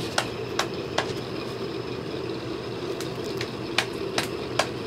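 Hands clapping in an even rhythm, about two or three claps a second, with a pause of about two seconds in the middle, over a steady low hum.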